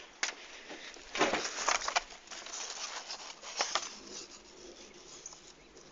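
Rustling and clicking handling noise: a dense cluster of clicks and rustles about a second in, a few more near the middle, then fading away.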